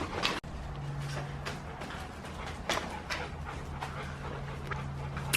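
A dog panting and moving about, with a steady low hum starting about half a second in.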